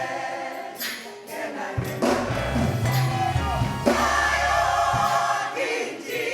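Gospel choir singing with instrumental backing and a strong bass line.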